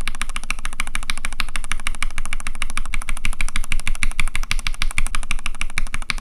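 Stock, unlubricated Gateron X R2 linear mechanical keyboard switch with a Cherry keycap, pressed in a rapid, steady stream of clacks, many a second, as a sound test.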